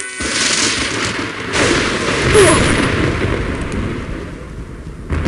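Thunder rumbling: a clap swells about a quarter second in, a louder one rolls in about a second and a half in and peaks, then it slowly dies away.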